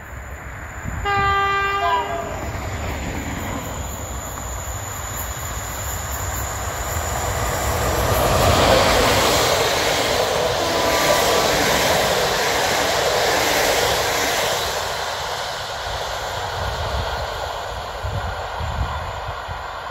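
The horn of a PKP EP07 electric locomotive sounds once, briefly, about a second in. Then the locomotive and its Intercity passenger coaches pass close by, and the wheel-on-rail noise swells to a peak midway before fading as the train moves away.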